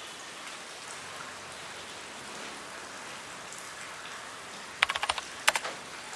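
Steady rain falling, an even hiss. About five seconds in comes a quick run of sharp taps, then one loud tap with a couple of weaker ones just after; these are the loudest sounds.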